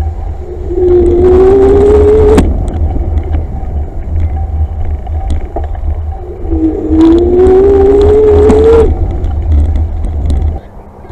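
A small electric motor whines twice as the camera rides along the path. Each whine rises in pitch for one to two seconds and then cuts off sharply with a click. Under it runs a steady low rumble of travel, which drops away near the end.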